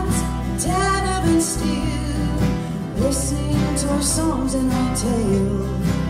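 Live folk band playing: strummed acoustic guitars, mandolin, bass and organ under sung vocals that hold long notes.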